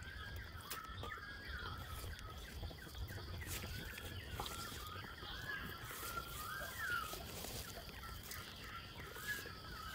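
Birds calling over and over in short chirps and whistles, with a steady high hiss behind them. Occasional light clicks and taps come from ingredients being handled and dropped into a metal pot.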